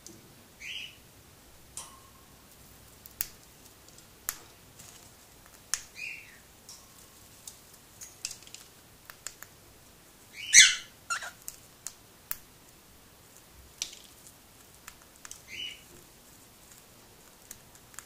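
Cockatiel cracking millet seeds off a millet spray: sharp little clicks scattered throughout. A few short chirps are mixed in, and a louder, harsher call comes a little past the middle.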